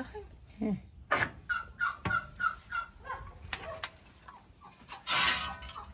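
Chickens clucking in a farmyard, a quick run of short calls. About five seconds in comes a louder, rough, rasping noise.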